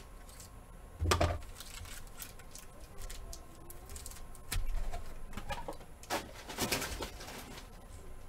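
Foil trading-card packs being handled and ripped open: crinkling and rustling of the wrappers, with a sharp crackle about a second in and a run of them between about five and seven seconds.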